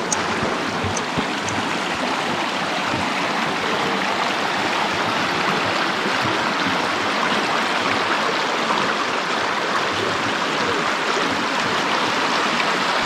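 A stream rushing steadily over rocks, a continuous even wash of flowing water.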